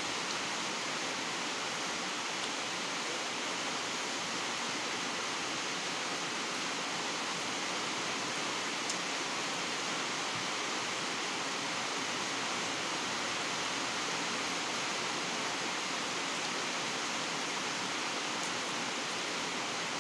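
Steady, even hiss of background noise, with a few faint ticks.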